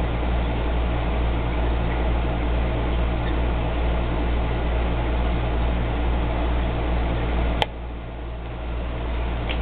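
Steady low mechanical hum with hiss. About three-quarters of the way through there is a single sharp click, after which the hum is quieter.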